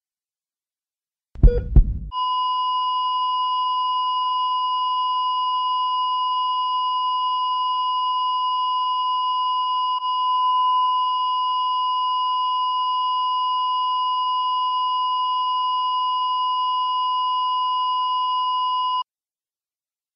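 A short deep double thump, then a steady electronic tone, a pure beep at about 1 kHz held unchanged for some seventeen seconds before it cuts off suddenly.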